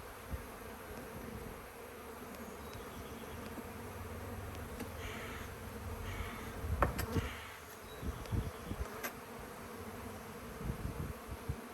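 Honeybee colony buzzing steadily from an opened, strongly populated hive, with a few sharp clicks and knocks from frames being handled past the middle.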